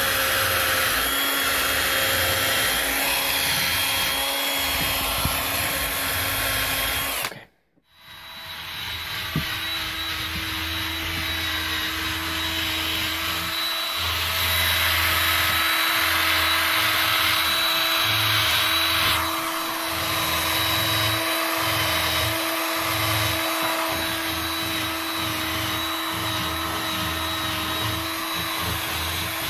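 Hand-held power tool spinning a buffing wheel against a buffalo-horn bow nock: a steady motor whine with the rub of the wheel on the horn. The sound cuts out for a moment about eight seconds in, then runs on, with a few seconds of louder rubbing a little past the middle.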